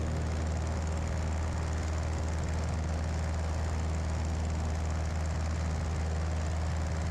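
Cessna 172B's six-cylinder Continental O-300 engine and propeller running at full takeoff power in the climb just after liftoff, a steady, unchanging drone.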